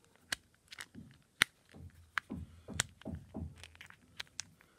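Transparent silicone phone case being pressed and snapped onto a smartphone's edges: several sharp clicks and snaps, the loudest about a second and a half in, with a few short falling creaks in the middle.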